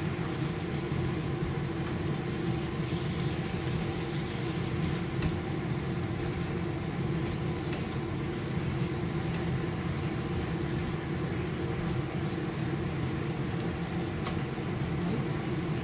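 Steady hum of a kitchen range hood fan, with mushrooms and chicken sizzling in a frying pan over a gas flame. A few faint spatula scrapes against the pan.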